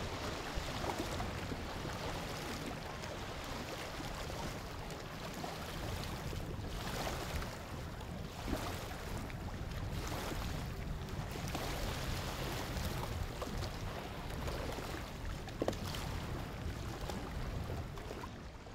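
Open-air hush of wind and lapping water, a steady hiss that swells now and then, with a single knock near the end.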